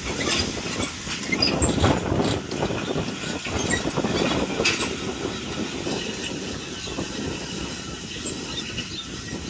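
Kubota M6040SU tractor's diesel engine running under load as it drags a disc harrow through dry soil, with irregular clattering and rattling from the discs and hitch. The sound grows quieter in the second half as the tractor moves away.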